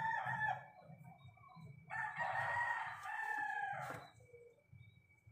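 A rooster crowing twice: a short crow that ends about a second in, then a longer crow of about two seconds.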